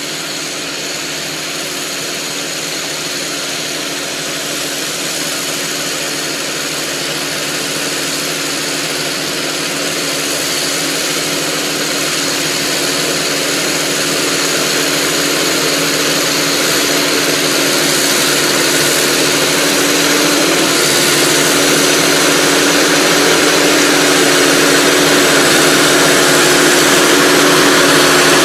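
Kubota MZ755 tractor's diesel engine running steadily as it works across the field, growing gradually louder as it comes closer.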